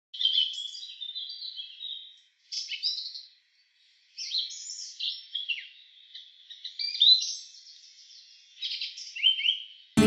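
A songbird singing a string of varied, high chirped and whistled phrases, with short pauses between them and a longer break about three and a half seconds in.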